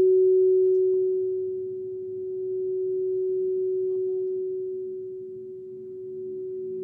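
A sound-healing instrument ringing one sustained, pure, low-pitched tone that swells and fades in loudness twice.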